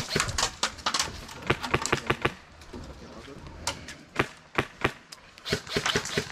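Irregular sharp clicks and snaps, typical of airsoft shots and BB hits, come in short clusters with brief gaps.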